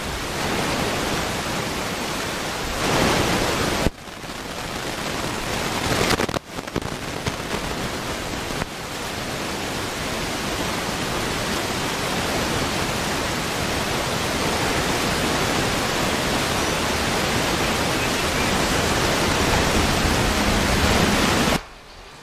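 Loud steady rushing hiss with no pitch to it, broken by abrupt cuts a few times and stopping suddenly near the end.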